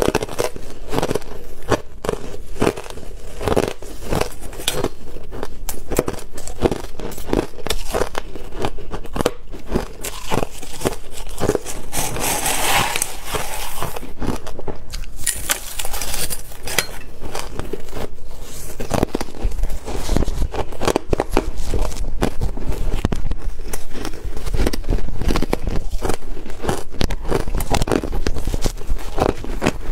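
Crushed ice being bitten and chewed, close-miked: a dense, irregular run of sharp crunches and crackles, with a metal spoon scooping through the bowl of ice.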